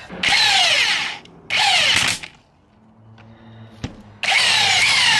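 Handheld power driver running in the bolts on a differential carrier, in three short runs with pauses between. The motor's pitch drops during each run.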